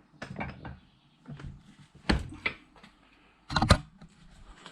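Scattered knocks and clacks of tools and metal scrap parts being handled on a workbench, with two sharper clacks, one about two seconds in and one at about three and a half seconds.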